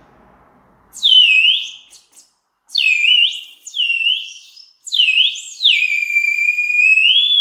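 Terracotta water whistle (Serbian 'spirit bird' water jar), filled with red wine instead of water, blown in a run of short warbling bird-like calls and then one long held call near the end. The player feels the tone is a bit deeper than with water.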